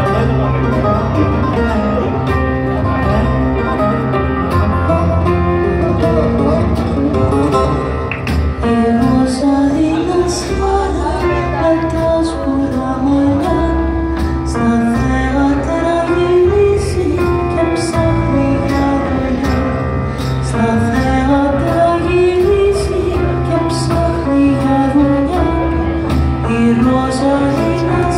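Live band music with a steady electric bass line, a plucked string instrument and percussion keeping a regular beat. From about eight seconds in, a melody climbs and falls in repeated phrases over the accompaniment.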